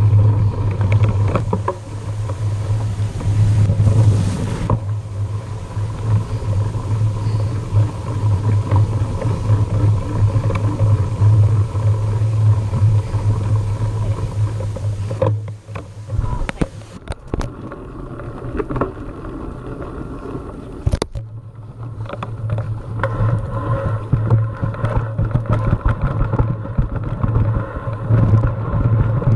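Wind rumbling on the microphone and the rattle and knocks of a mountain bike riding over a rough dirt track, as heard from a camera on the bike or rider. The sound shifts abruptly about 15 and 21 seconds in.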